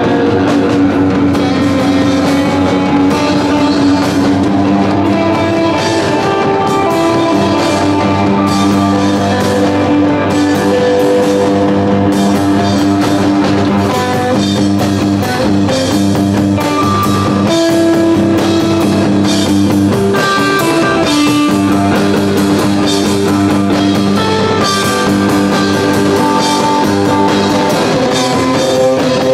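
A live rock band playing loudly: electric guitar holding sustained notes over a drum kit.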